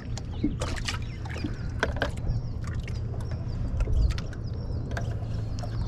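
Ducklings peeping faintly, a series of short, high, falling peeps starting about a second and a half in, over a steady low hum and a few sharp knocks.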